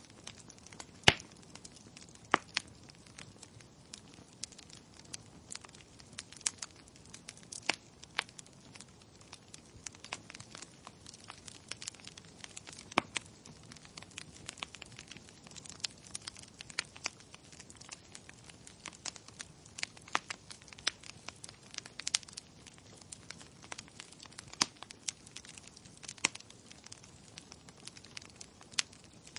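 Wood fire in a fireplace crackling: irregular sharp pops and snaps over a faint steady hiss, the loudest pop about a second in.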